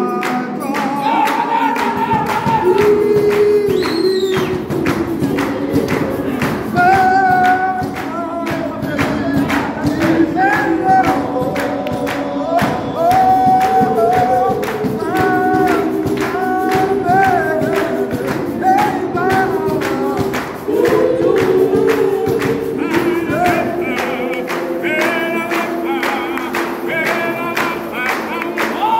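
A gospel choir singing, led by male voices, over steady rhythmic hand clapping.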